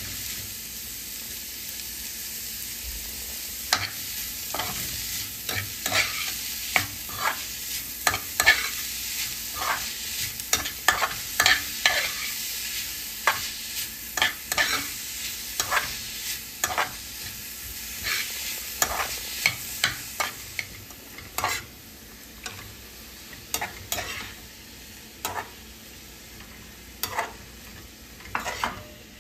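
Chopped onions sizzling in oil in a frying pan while a metal spatula stirs and scrapes them, its strokes clicking against the pan at irregular intervals. The sizzle turns quieter about two-thirds of the way through.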